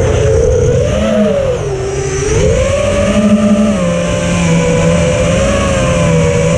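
Brushless motors and propellers of a 5-inch FPV quadcopter (iFlight Xing 2207 1800KV motors) whining in flight, heard through the onboard GoPro. The pitch dips as the throttle eases about one and a half seconds in, then climbs back and holds steady.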